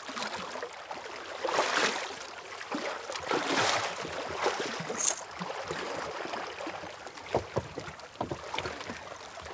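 Lake water lapping and sloshing in the rocky shallows, in swelling washes, with a few brief splashes about seven to eight seconds in as someone wades in.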